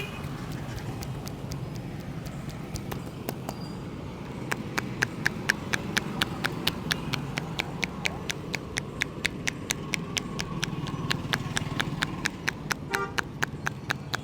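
Hands tapping rhythmically on the head in a head massage, as sharp pats: a few scattered ones, then a steady run of about four a second from about four and a half seconds in, over a steady low hum.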